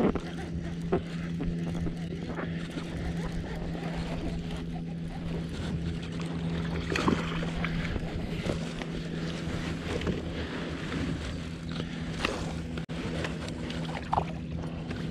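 Baitcasting reel being cranked while a bass is fought from a fishing kayak, over a steady low hum, with a few short clicks and knocks.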